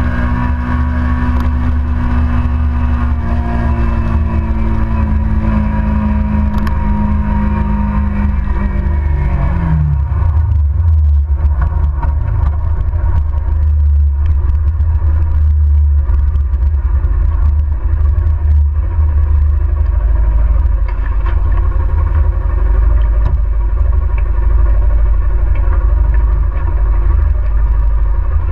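Kawasaki motorcycle engine, its pitch falling over the first ten seconds or so as the bike slows to a stop, then idling steadily in neutral, under a heavy low rumble.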